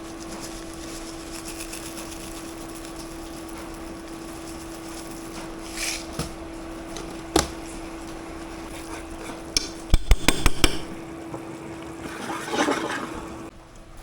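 Pots and metal kitchen utensils knocking and clattering: a single knock about seven seconds in, then a quick run of loud clanks around ten seconds, over a steady low hum.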